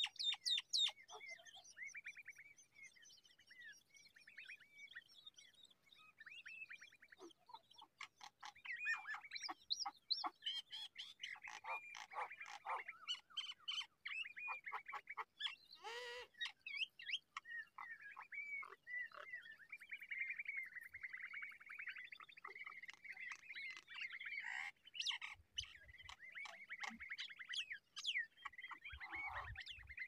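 Shrike nestlings begging in the nest: thin, high chirps repeated over and over, running into a fast, dense series of chirps about two-thirds of the way through.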